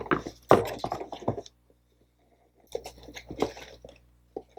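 Packaging being handled as a shoebox is opened: crinkling and crunching of cardboard and wrapping in two bursts with a short pause between.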